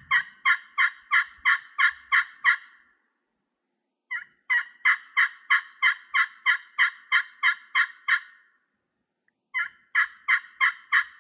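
Turkey pot call with a gray slate surface over a copper soundboard in a tulipwood pot, worked with a light striker: evenly spaced turkey yelps, about three a second, in three runs with short pauses between.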